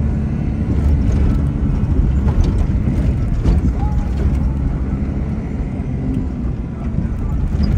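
Vehicle driving over a rough dirt track, heard from inside the cabin: a steady low rumble of engine and tyres, with light rattling and clicking from the bodywork.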